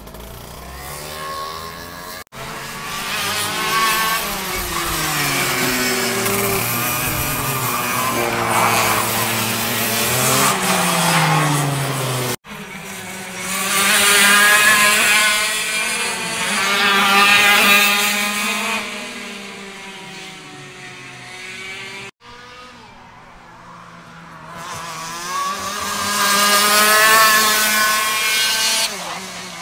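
Racing kart engine revving up and falling back again and again as the kart laps the circuit, its pitch climbing on the straights and dropping into the corners. It swells loud as the kart comes close and fades as it moves away, and the sound breaks off abruptly three times where clips are joined.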